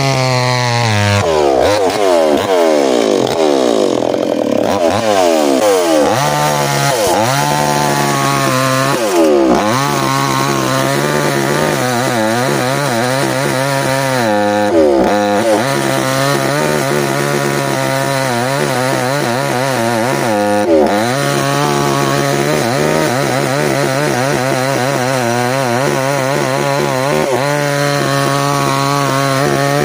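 Mini chainsaw cutting dense ironwood at high revs. Its engine pitch repeatedly sags and climbs back as the chain bites into the hard wood.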